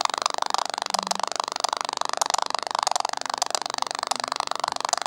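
Samsung Galaxy Note 2's loudspeaker giving a fast, continuous stream of harsh popping and crackling that stops suddenly near the end. The phone's sound output has failed, putting out pops instead of normal sounds.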